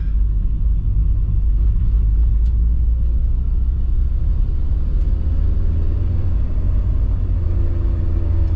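Nissan 240SX driving, a steady low rumble of engine, exhaust and road, which the driver takes to be all exhaust.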